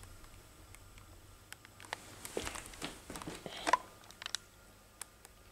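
Light rustling and scattered soft clicks, thickening into a cluster of rustles in the middle with one sharp click near the end of it.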